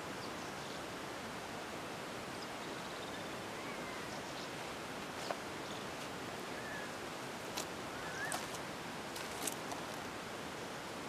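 Outdoor ambience: a steady hiss, with a few short bird chirps and sharp clicks in the second half.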